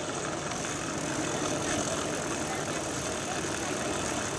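Steady rushing wind and rolling-tyre noise, heard from a camera riding on a moving recumbent bicycle on pavement.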